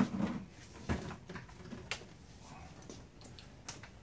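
Bally Eight Ball Deluxe pinball playfield being lifted and swung upright in its cabinet: a few scattered knocks and rattles of the wooden board and the mechanisms underneath it.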